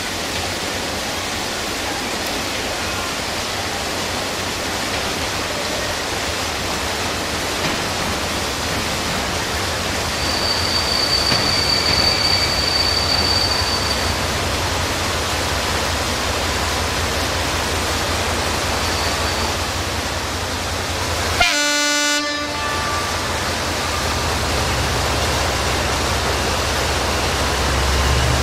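A CFR class 82 'Torpila' diesel-hydraulic locomotive approaches with a passenger train; its engine and the running of the wheels on the rails grow louder, with a deep hum coming up about a third of the way in. About three-quarters of the way through it gives one horn blast of a little over a second.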